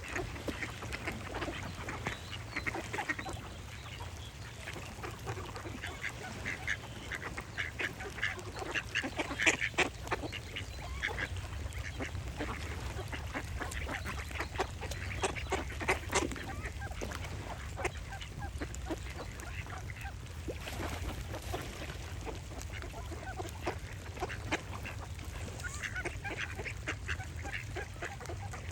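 Ducks quacking, many short calls in quick runs that come and go, over a steady low rumble.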